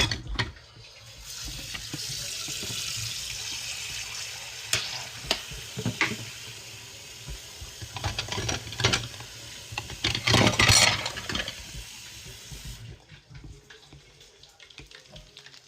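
Battered chicken pieces sizzling in hot oil in a frying pan, with sharp clicks and knocks of a utensil against the pan. The sizzle starts about a second in and stops sharply near the end. The cook suspects the oil is too hot.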